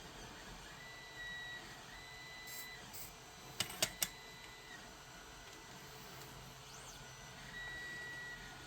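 Quiet soldering work on twisted grounding wires: a faint high-pitched whine that comes and goes, and three quick sharp clicks about four seconds in.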